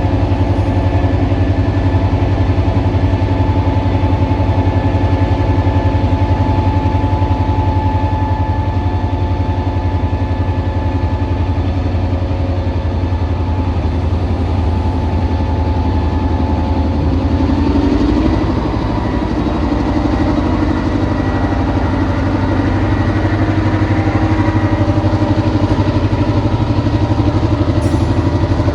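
Diesel locomotive engine running steadily at low throttle, its note changing about two-thirds of the way through.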